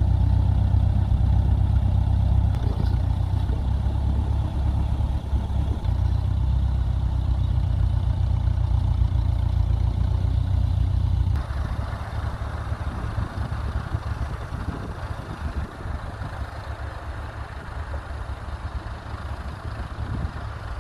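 Ferguson FE35 tractor engine running steadily with a deep, even hum. About eleven seconds in the sound drops suddenly to a quieter engine sound with more hiss above it.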